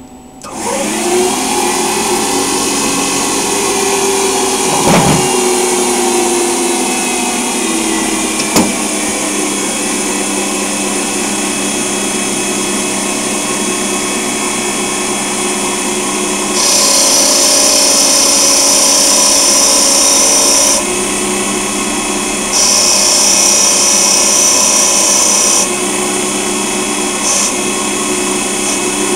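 Small Hercus PC200 CNC lathe running. The spindle starts just after the beginning and winds up to speed with a rising whine, then runs steadily with a mix of steady tones while it turns an aluminium part. Past the middle come two stretches of much louder high hiss, each about four seconds long.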